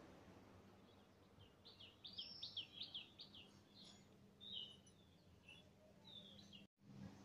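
Faint bird song: a quick run of chirping notes about two seconds in, followed by a few shorter calls.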